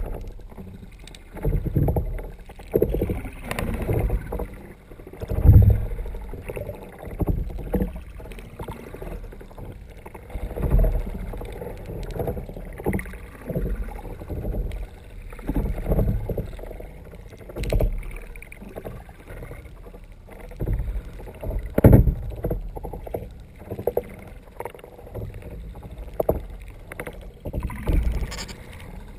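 Water sloshing and knocking against a kayak's hull as it is paddled, heard muffled through a GoPro dive housing mounted under the hull: dull low surges every second or two.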